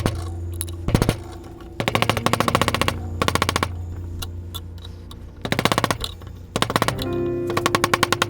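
Bursts of very rapid knocking, about six short runs each lasting under a second, from work on freeing an axe head from its handle, over background music.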